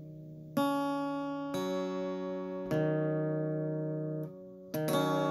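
Background music: slow plucked-string instrumental, a new chord struck about once a second and left to ring out.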